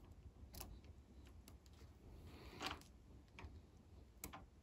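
A few faint, sharp metal clicks and a brief scrape as a small eyeglass screwdriver works a slip ring onto the chuck collar of a DeWalt impact driver, the loudest click about two and a half seconds in.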